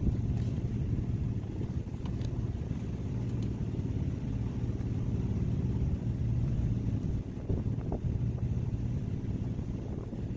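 A fishing boat's engine running steadily, a low even drone, with a few faint clicks over it.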